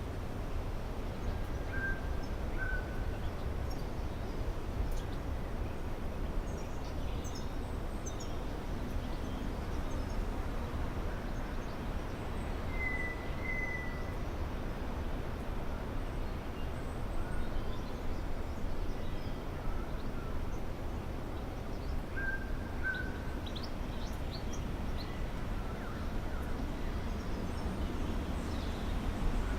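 A steady low rumble of background noise with wild birds calling over it: a short two-note whistled call about two seconds in, again near the middle and again about three-quarters through, and faint scattered high chirps.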